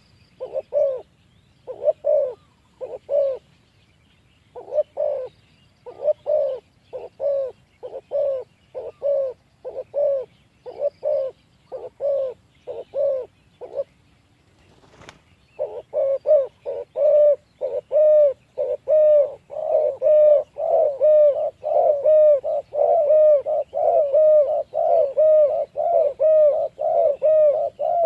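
Spotted doves cooing: a run of short, repeated coos that pause briefly, then come faster and louder with overlapping calls in the second half. A single sharp click is heard about fifteen seconds in.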